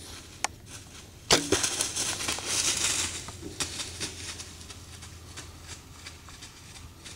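A bow shot: a sharp crack with a short falling twang of the string about a second in, followed by a whitetail doe bolting away through dry fallen leaves, a crashing rustle that lasts a couple of seconds and fades.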